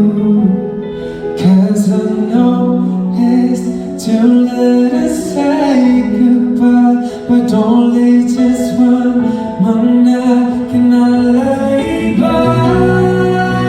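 Live pop song: a male singer's voice holding long notes over band accompaniment, with the band growing fuller near the end.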